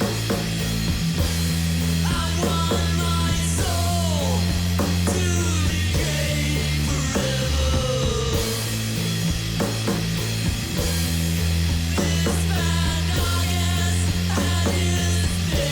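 Stoner rock played by a three-piece band on a demo recording: sustained low guitar and bass notes under regular drum hits, with a melody line above that slides and bends in pitch.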